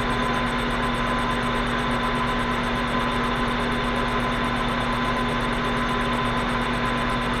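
Atlas metal shaper running steadily with a constant motor hum, taking a cutting pass on a Delrin workpiece.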